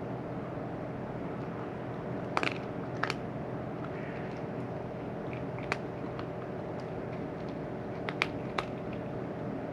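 A cat crunching dry food in a few sharp, scattered bites over a steady background hum.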